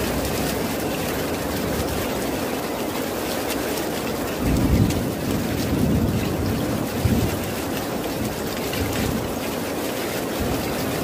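Steady rain, with a low thunder rumble that swells about four seconds in, peaks twice, and dies away about three seconds later.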